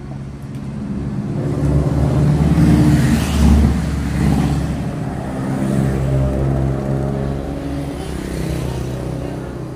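A motor vehicle's engine passing close by, growing louder to a peak about three seconds in, then fading slowly.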